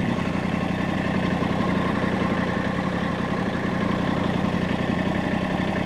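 Massey Ferguson GC1710 compact tractor's three-cylinder diesel engine running steadily under the load of a front-end loader lift.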